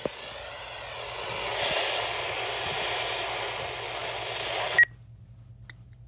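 Alert Works weather alert radio hissing with static through its small speaker, cutting off abruptly with a click and a short beep just under five seconds in.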